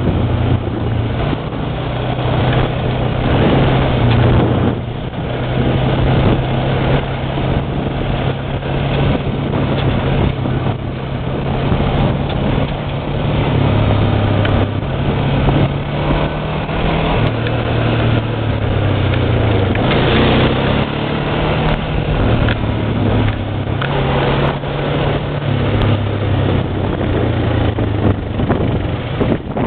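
ATV engine running while the machine is ridden, loud and continuous, its pitch stepping up and down as the throttle changes.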